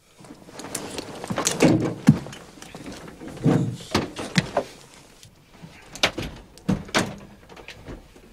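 Metal clanks and thuds of a tank hatch being opened and a crewman climbing out over the hull: a string of separate knocks and bangs, heaviest about two seconds in and again around four and seven seconds.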